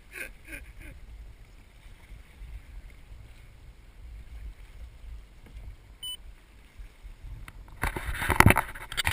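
Strong wind buffeting the microphone as a steady low rumble, with a short high tone about six seconds in and a loud rush of wind noise for the last second or so.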